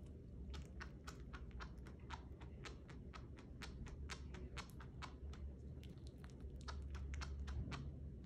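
Chinchilla chewing a piece of banana: quick, sharp chews at about four a second.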